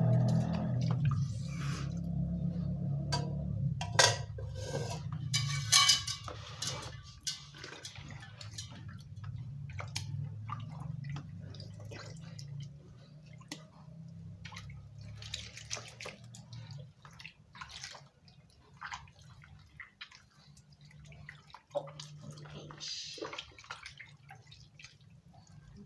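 Hands washing and rubbing raw tripe in a plastic basin of water: irregular splashing and dripping, louder and busier in the first few seconds with two sharper splashes, then softer.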